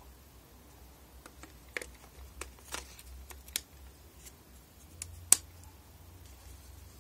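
Small plastic clicks and taps as a battery pack is fitted into the grip compartment of a Canon PowerShot SX60 HS. Then, about five seconds in, the battery door snaps shut with one sharp click, the loudest sound here.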